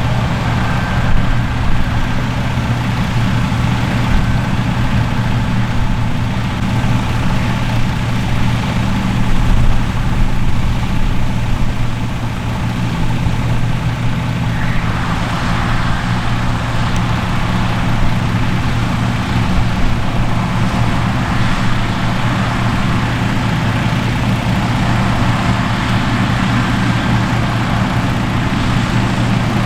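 Large diesel engine of harvest machinery running steadily, a deep even drone; about halfway through, a rushing noise in the higher range grows louder over it.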